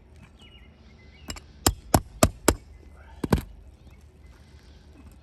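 Sharp strikes of a nail-pulling tool being driven under roofing nails in shingles: a light tap, four quick blows about a third of a second apart, then a double blow about a second later.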